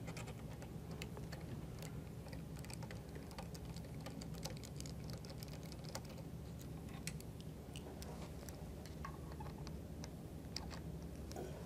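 Faint, irregular metallic clicks and ticks of a hex screwdriver turning out the 4 mm Allen screws that hold the motor, over a steady low hum.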